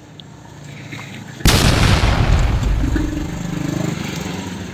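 A boom sound effect: a sudden loud hit about a second and a half in, then a long, slowly fading tail.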